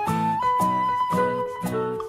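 Background music: a flute-like melody holding long notes over a bouncy beat of plucked chords, about two beats a second.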